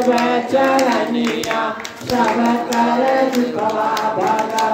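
A bhajan (Hindu devotional song) sung over loudspeakers, with long held notes that break off briefly about two seconds in. The congregation claps along in time.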